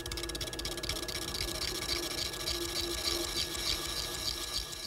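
Chisel held on the tool rest cutting the shoulder of a pine table leg spinning on a wood lathe that is running in reverse: a rapid, steady chatter of the cutting edge against the turning wood.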